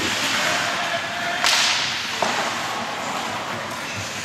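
Ice hockey play heard from rinkside: skate blades scraping the ice in a steady hiss, with a sharp crack about a second and a half in and a smaller knock shortly after.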